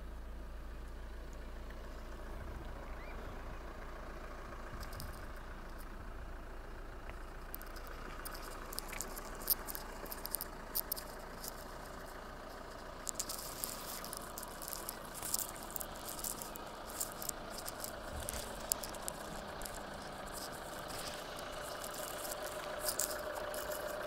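Vauxhall Cascada 2.0 CDTi diesel engine idling steadily. From about eight seconds in, a scatter of short, sharp clicks and ticks sits over it.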